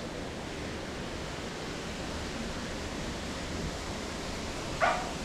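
Steady, even background hiss of outdoor ambience, with one short rising call or cry near the end.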